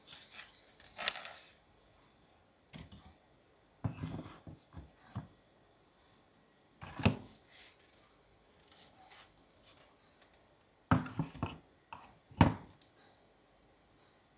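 A woven bamboo rice basket with a wooden rim being handled: a few separate light knocks and clacks of bamboo and wood, with short rustles, the two loudest near the end.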